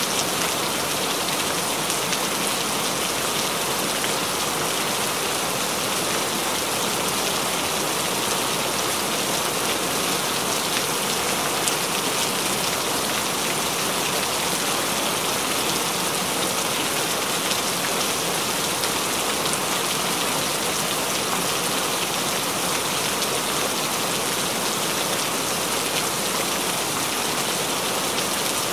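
Rain falling steadily: a dense, even hiss with the fine patter of separate drops, unchanging throughout.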